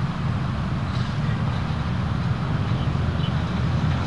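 Steady low rumble of outdoor background noise with no distinct sounds standing out.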